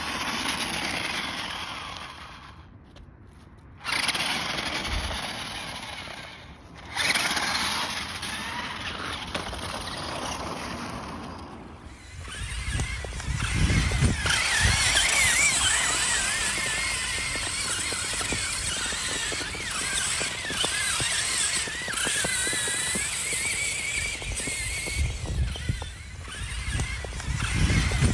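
Small electric drive motors of a toy RC stunt car whining, stopping and starting and rising and falling in pitch with the throttle. A low rumble runs under it from about halfway.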